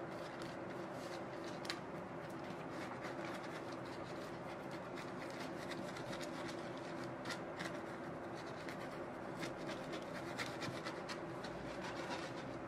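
Silicone pastry brush stroking over the crust of a freshly baked loaf of bread, a soft rubbing with many small ticks from the bristles. A faint steady hum sits underneath.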